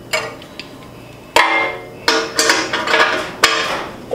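Metal clanking and clicking as a wrench works a bolt on a metal bumper, each clank with a ringing tone. A single click comes near the start, then a run of clanks from about a second and a half in.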